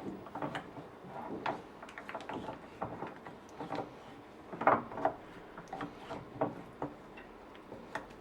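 Stirring thick, partly melted chocolate in a microwave-safe bowl: a utensil scraping and tapping against the bowl in soft, irregular knocks and ticks.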